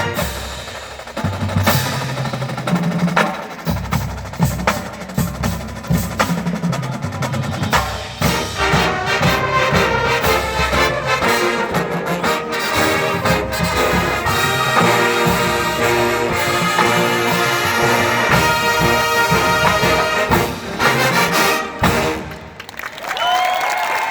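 Marching band playing, with brass over a drum line's rapid snare and drum strikes. The music cuts off near the end and the crowd starts cheering.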